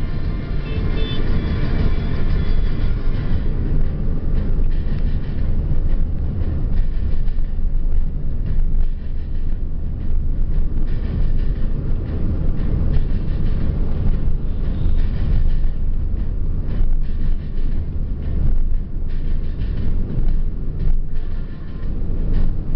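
Steady low rumble of a car on the road: engine and tyre noise. A few brief tones sound over it in the first three seconds.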